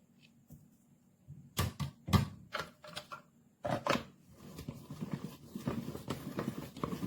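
Plastic twist-style meat shredder being handled: a few sharp plastic knocks, then a run of quick rattling clicks as it is twisted.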